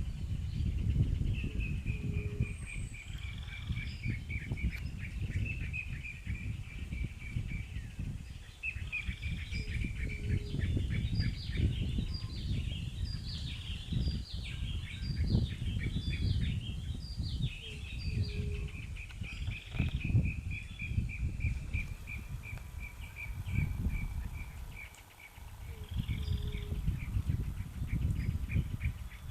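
Giant otter chewing its food, a dense, irregular low crunching that pauses briefly near the end, while a bird sings long trills and runs of quick falling notes.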